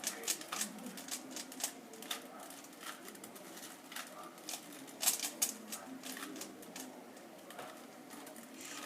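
3x3 Rubik's cubes being turned fast in a speed-solving race: rapid, irregular plastic clicks of the layers snapping round, several a second, with a louder cluster about five seconds in.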